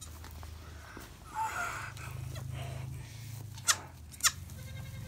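Myotonic goats, a doe with her newborn kid just after kidding, giving two short, sharp calls about half a second apart some three and a half seconds in, after a brief rustle in the straw.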